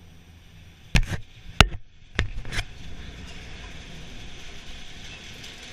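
A chairlift chair runs into its station with a quick series of sharp metal knocks and clanks, five in under two seconds, then a steady hiss.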